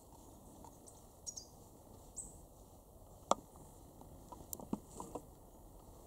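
A few faint, very high, thin calls from small birds, tits, heard once or twice in the first half. About three seconds in there is a sharp click, and a quick run of smaller clicks follows near the end.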